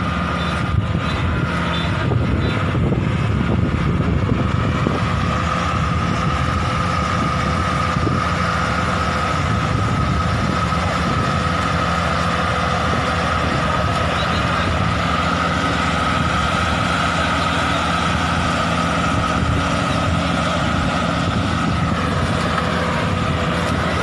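Daedong DSC-62G half-feed combine harvester running steadily while cutting rice paddy: an engine with a steady high whine from the machinery over it.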